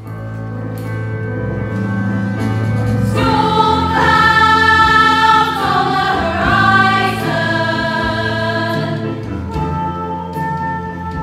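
A chorus of voices singing held notes in harmony over sustained accompaniment, swelling in loudly about three seconds in.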